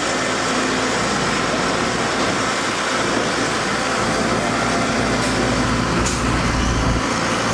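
Diesel engines of a dump truck and a Samsung wheeled excavator running steadily, the excavator working its hydraulics as it swings a loaded bucket over toward the truck.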